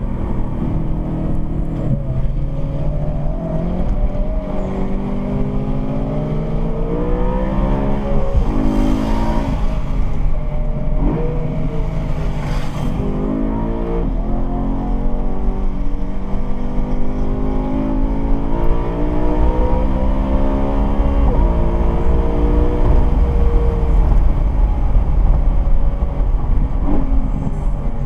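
Sports car engine heard from the moving car, pulling up through the gears: its note repeatedly climbs in pitch and drops back at each shift, over steady road rumble.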